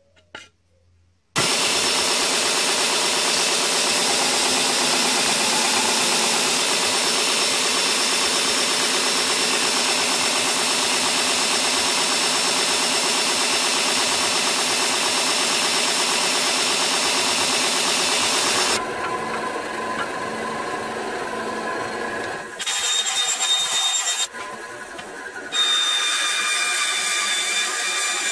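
Power tool running loudly and steadily, starting abruptly about a second in; its sound drops and changes a few times in the second half. Near the end it is a benchtop band saw cutting a sheet of G10 handle material.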